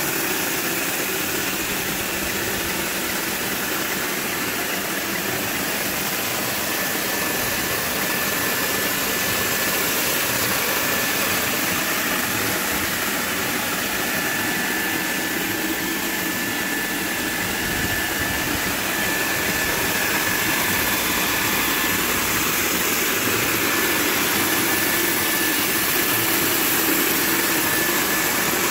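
Robowash touchless car wash spraying foam onto a car: a steady hiss of spray with the machine's pump running. A thin, steady high whine joins about six seconds in.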